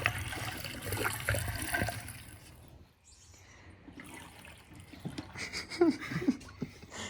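Liquid poured into a Predator 212 engine, trickling and splashing steadily for about two and a half seconds, then stopping, followed by faint handling noises.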